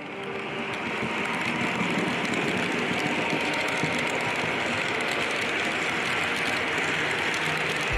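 HO-scale model train running along the track: the rolling rush of small metal wheels on rail with a stream of fine clicks, swelling over the first second or so and then steady.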